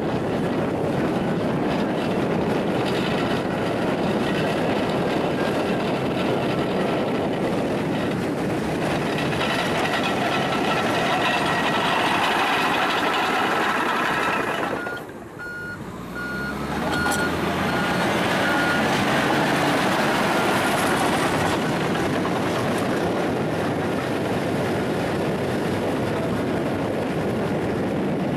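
A heavy snow-clearing machine's engine runs steadily and loudly. About halfway through, its reversing alarm beeps for a few seconds.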